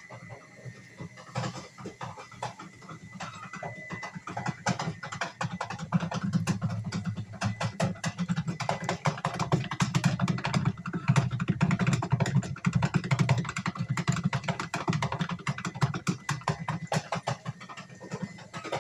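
Steam blown through a pipe into a vat of soy milk, cooking it for tofu: a dense, rapid crackling and bubbling over a low rumble, growing louder about five seconds in.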